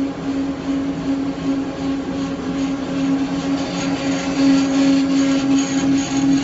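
CAK50186 CNC lathe running steadily with a strong, even hum from the spindle drive while knurling a long shaft. A faint, rapid, regular ticking comes in about halfway through, as the knurling wheel rolls on the turning work.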